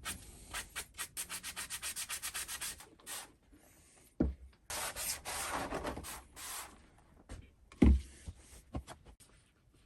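Hand rubbing on a metal vise part with an abrasive or brush: a quick run of short back-and-forth strokes, about five or six a second, then a longer stretch of scraping. Two dull knocks come in between, one about four seconds in and one near eight seconds.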